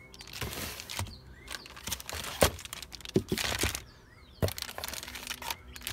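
Clear plastic packaging bags crinkling and rustling as they are handled, in several bursts with short pauses, with a couple of sharp clicks.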